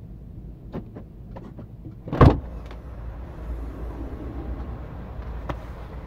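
Car tailgate being unlatched and lifted open from outside: one loud clunk about two seconds in, with a few lighter clicks around it, over a steady low rumble.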